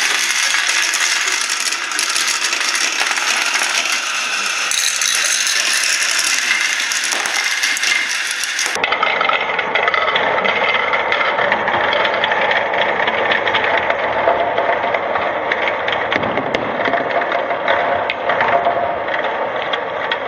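Dozens of small plastic balls rattling and clattering through a Kumon Kumikumi Slope plastic marble run, swirling round its funnel bowls and dropping down the tubes in a dense, continuous clatter. About nine seconds in the sound cuts to a duller stretch of the same clatter.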